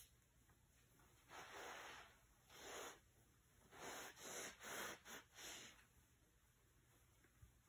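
Near silence, broken by a handful of faint, airy breaths between about one and six seconds in, with a small click at the start and a soft thump near the end.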